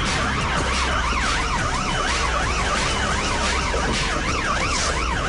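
Police car siren in a fast yelp, its pitch sweeping up and down several times a second, heard from inside the car, with the car's engine and road noise as a low rumble underneath.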